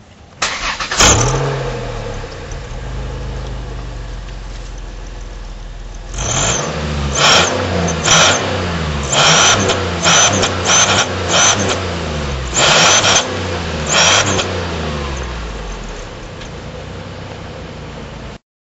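Car engine starting, idling briefly, then revved up and down about ten times with a clip-on exhaust whistler on the muffler. Each rev brings a high, turbo-like whistle.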